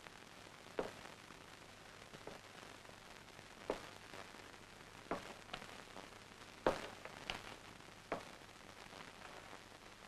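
A steady faint hiss with about eight soft, separate clicks or taps at uneven spacing, the loudest a little past the middle.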